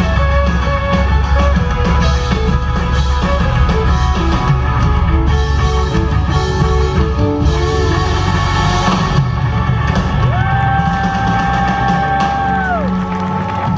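Rock band playing an instrumental passage, with drums, bass and guitar. Near the end a long held note slides up, holds for about two seconds and slides back down.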